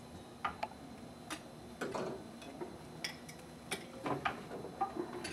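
Scattered light plastic clicks and knocks from tubing and push-fit fittings on a reverse osmosis unit being handled and reconnected.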